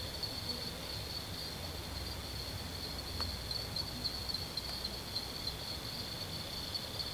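Steady chorus of insects, a high-pitched shrill trilling with a fast pulsing flutter that keeps on without a break. A faint short tick about three seconds in.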